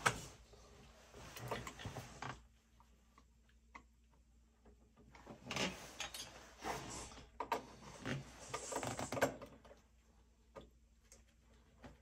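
Scattered metal clicks, knocks and scraping as parts are handled and fitted at an oil burner's electrode and nozzle assembly, with no motor running.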